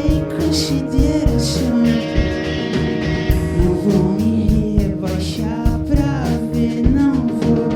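Psychedelic rock band playing a song live, with a voice singing over the instruments and a steady beat.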